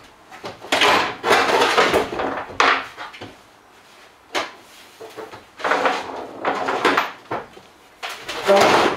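Unbolted steel bulkhead of a Peugeot Boxer van being lifted and worked loose: scraping, rattling knocks of the metal panel against the van body, in about six short spells with pauses between.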